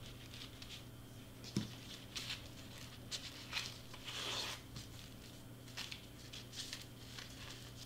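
Soft, scattered rustles and crinkles of crepe paper being folded and pressed by hand onto foam board, with a small knock about a second and a half in and a longer rustle around four seconds.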